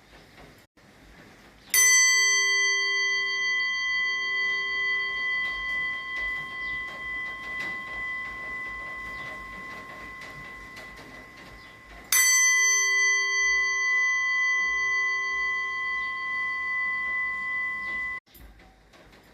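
A kansa (bronze) vessel struck twice, about ten seconds apart. Each strike gives a clear, sweet ring of several steady tones that fades slowly with a gentle wavering. The second ring is cut off suddenly near the end. The long sustained ring is the sign of genuine bronze.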